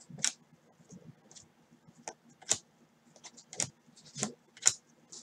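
Stiff, glossy chromium baseball cards flicking and clicking as they are flipped one by one to the back of a stack in gloved hands: about a dozen irregular sharp clicks, a few of them louder.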